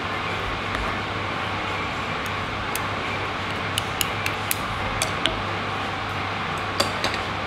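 A ceramic spoon clinking against a bowl of rice in broth: a scatter of light clicks, most of them in the middle and near the end. Underneath is a steady background hum.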